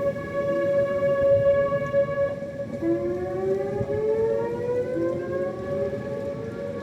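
Tornado warning sirens sounding together: one holds a steady tone while another wails upward in pitch in slow sweeps, about three seconds in and again about five seconds in.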